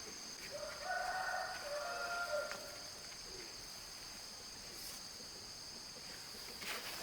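A rooster crowing once, a call of about two seconds starting about half a second in, over a steady high-pitched insect drone.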